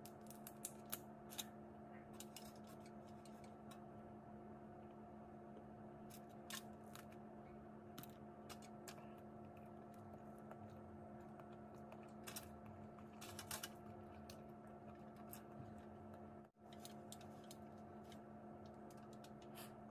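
Boiled crawfish shells cracked and peeled by hand, small irregular clicks and crackles over a faint steady hum.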